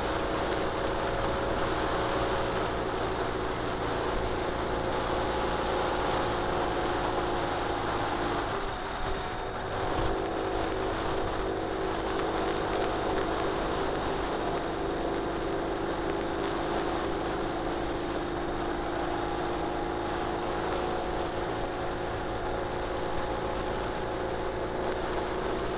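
Ural Retro sidecar motorcycle's flat-twin engine running at road speed under steady wind and road noise. About nine seconds in, the engine note dips briefly and then settles at a slightly different pitch.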